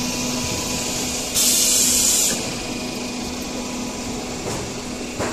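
Steel roofing-sheet roll forming line running with a steady machine hum. About a second and a half in, a loud hiss lasts about a second, and a small click comes near the end.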